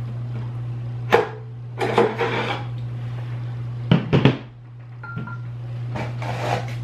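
Anycubic Photon resin printer's build plate and vat being handled and set down on a desk: a knock about a second in, scraping and rattling, then a few sharp knocks around four seconds in. A steady low hum runs underneath.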